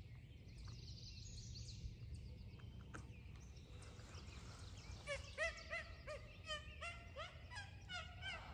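A run of turkey yelps, about ten evenly paced notes roughly three a second, starting about five seconds in and fairly faint. A small bird chirps high and thin earlier on.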